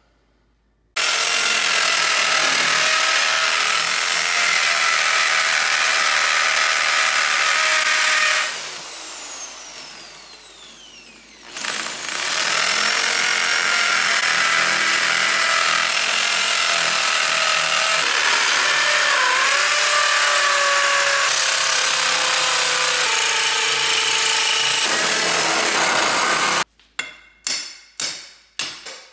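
Electric drill boring holes into poured concrete around a drain pipe, running loud and steady with a motor whine. It winds down with falling pitch, then starts up again. Near the end the drilling stops and a hand hammer strikes the drilled concrete about five times, roughly two blows a second, chipping it out.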